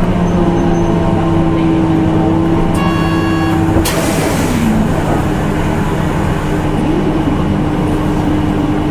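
A Nissan Diesel CNG city bus running, heard from inside the cabin with a steady engine hum. About three seconds in there is a brief electronic tone, and just after it a sudden burst of hissing.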